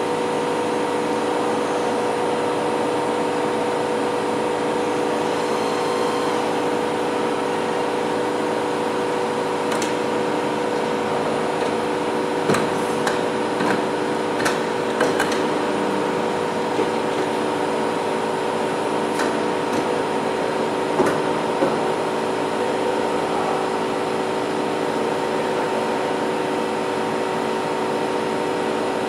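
Novar CNC bed milling machine running steadily under power, a constant mechanical hum with several steady tones, with a handful of light clicks about halfway through.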